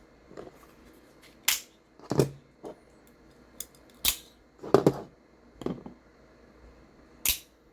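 A series of sharp clicks and light knocks, about six spread over several seconds, from folding pocket knives being handled and set down.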